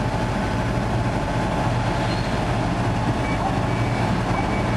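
Steady low drone of a fishing boat's diesel machinery running while moored, with faint short high beeps repeating in the second half.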